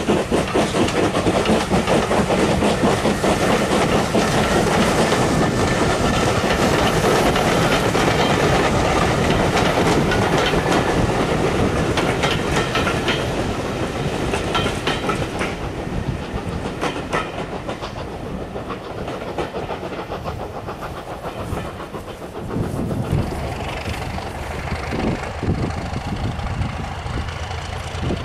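Passenger train coaches running past close by, wheels clicking rhythmically over the rail joints, the sound thinning and fading after about halfway as the last coach goes by. A low rumble is left near the end.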